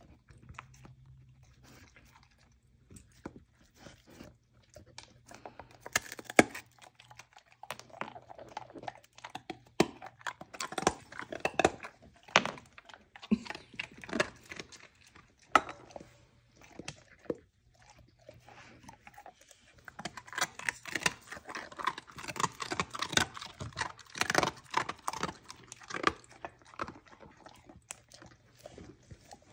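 A dog chewing and crunching pieces of a crumbly dog-cake treat taken from a hand. The crunching starts several seconds in and comes in two long bouts with a quieter spell between them.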